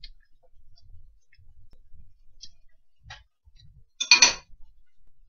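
Faint scattered clicks of handling, then about four seconds in a short, louder metallic clink and scrape as a metal utensil strikes the stainless-steel double boiler.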